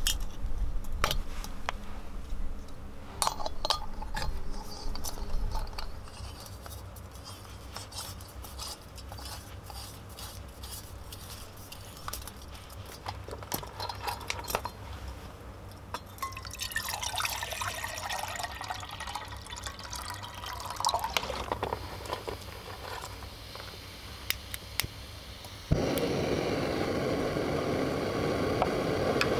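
Small screw-on camping gas stove being fitted to its canister with scattered metal clicks and scrapes. About 26 seconds in, the burner is lit with a click and runs with a steady hiss under the pot.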